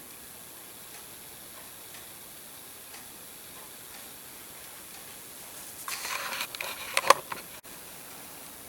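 Low steady hiss, then about a second of clicking and rattling as small hard parts are handled, with one sharper click near the end.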